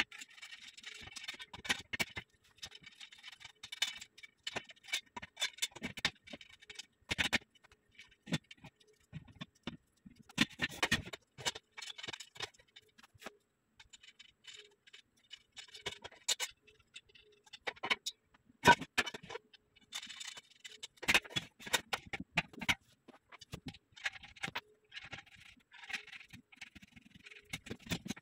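Black steel bed frame being assembled by hand: scattered clicks and knocks of metal parts and bolts, with scratchy scraping between them. The sharpest knock falls a little past the middle.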